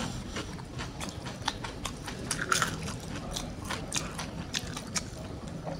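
Close-up chewing of crispy fried chicken: irregular sharp crunches and crackles of the breaded coating, with a few louder bites.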